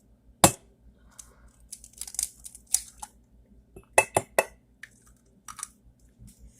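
An egg being cracked against the rim of a ceramic mug: a sharp tap about half a second in, then scattered small clicks and clinks of shell and mug, with three quick clinks about four seconds in.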